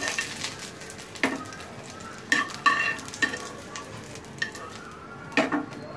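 Green chillies sizzling quietly in hot oil in a frying pan, with a metal slotted spatula scraping and knocking against the pan several times as the chillies are scooped out.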